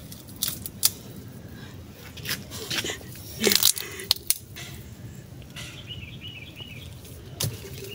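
Cassava roots being pulled out of damp soil and snapped apart by hand: a scatter of sharp cracks and crunches over soft rustling of earth, the loudest cluster about three and a half seconds in.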